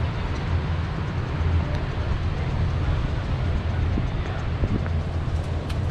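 Steady low engine rumble with wind noise on the microphone.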